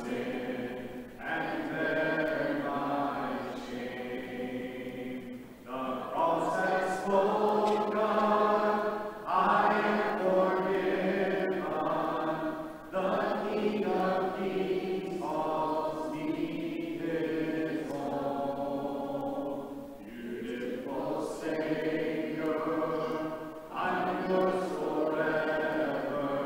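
Church congregation singing a hymn unaccompanied, in four-part harmony, in phrases of a few seconds with brief breaths between them.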